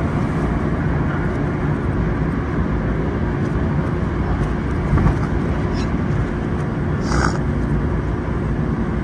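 Running noise of a Yokohama Municipal Subway Blue Line 3000R train heard inside the cab, played backwards: a steady rumble with a faint steady hum, and a brief high-pitched squeak about seven seconds in.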